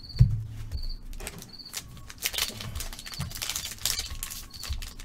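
Trading cards being handled and slid against each other: a dry rustling with soft clicks, and a low thump about a quarter second in. A cricket chirps throughout in short, evenly spaced high pips, roughly one every three-quarters of a second.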